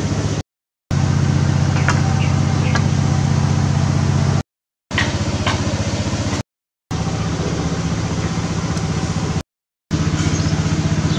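A steady low motor hum, like a small engine idling, with a few light scrapes of a metal spatula against a steel wok. The sound cuts out to silence for a moment four times.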